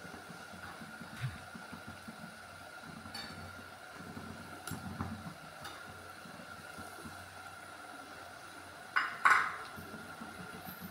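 Small clinks and scrapes of a spoon in a clay pot as mashed potato is mixed into the filling, with two loud sharp clatters about nine seconds in as green peas go in, over a steady faint tone.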